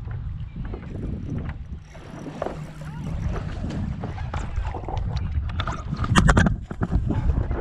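Wind rumbling on the paddleboard-mounted action camera's microphone and water sloshing around the board, with scattered small clicks and a loud burst of sharp knocks and splashing about six seconds in.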